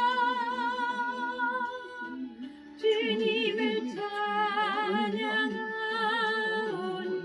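Korean gospel praise song sung over a karaoke-style accompaniment-machine backing track. A long note is held with vibrato, and the next line begins about three seconds in.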